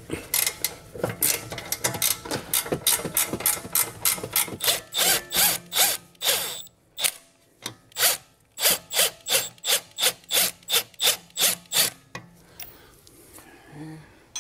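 Milwaukee Fuel cordless ratchet working a rear suspension arm bolt. It runs as a quick string of short ratcheting bursts, about two to three a second, with a brief break about halfway through.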